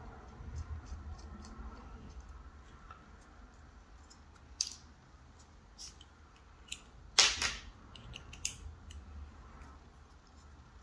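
Sharp clicks and taps of a precision screwdriver and its small steel bits against the plastic tracker case, half a dozen scattered over several seconds, the loudest a close double click a little past the middle.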